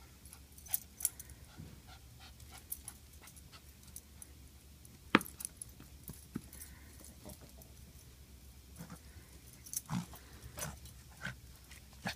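Small dog moving about and jumping, with a few short sharp sounds, the loudest about five seconds in and another cluster near the end, amid scattered light high ticks.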